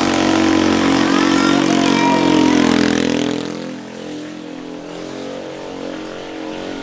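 A motorcycle engine passing close by, loud for about the first three seconds and then fading as it moves away.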